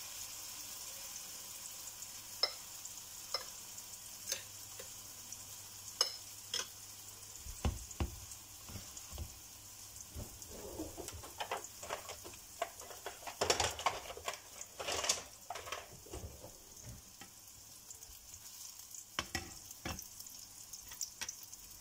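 Eggplant-and-egg omelette frying in oil in a pan, a steady sizzle. Scattered clicks and knocks of a spoon and spatula against the pan come through it, most of them in a cluster about two-thirds of the way through.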